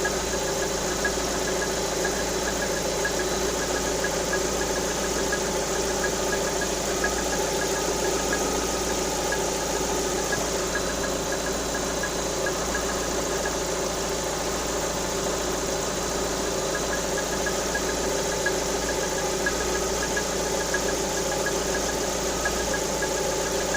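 Lada Vesta engine idling steadily with a fast, even tapping from the top end, which the owner takes for a knocking camshaft.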